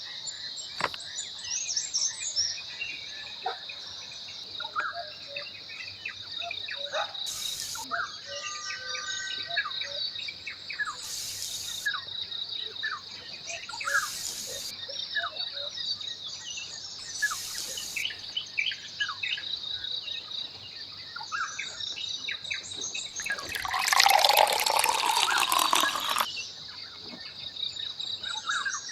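Birds chirping over a steady high-pitched drone. About 23 seconds in, a louder rush of water-like noise lasts roughly three seconds.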